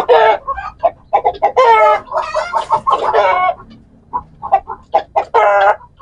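Broody hen squawking repeatedly and loudly as she is dipped in a barrel of water to break her broodiness, with the longest run of calls about two to three seconds in and another near the end.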